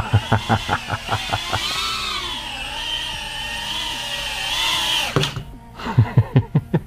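Tiny GT8 tiny-whoop drone's brushless motors and props whining in flight, the pitch rising and falling with the throttle, until they stop about five seconds in as it lands. Quick series of thumps in the first second or so and again near the end.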